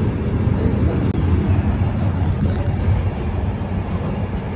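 Container freight train running over the concrete railway viaduct overhead: a steady, deep rumble heard from beneath the bridge.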